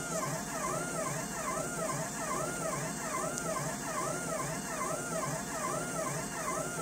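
Stepper motors of a Denford Sherline CNC mill whining as the table traces a circular spiral with no workpiece, the pitch rising and falling in even arcs about twice a second as the axes speed up and slow down around the circle.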